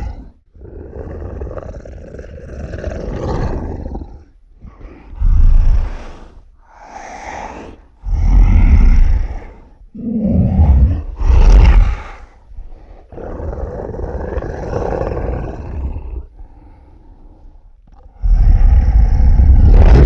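Monster vocal sound effects: a string of separate growls and roars, each one to three seconds long with short gaps between them, some loud and deep, others quieter and longer.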